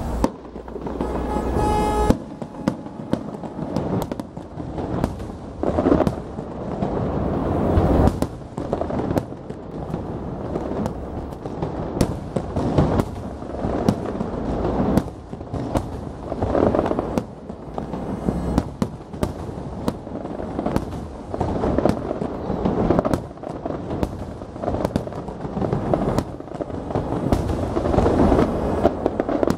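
Aerial firework shells bursting in rapid succession in the finale of a display: many sharp bangs layered over a continuous rumble. A steady pitched tone sounds for about a second and a half near the start.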